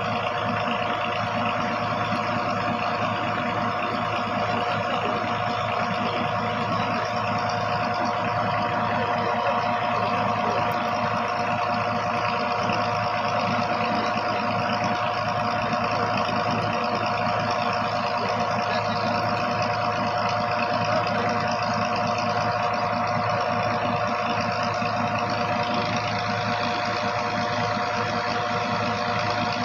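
An engine idling steadily, its even hum and rapid low pulsing unchanged throughout.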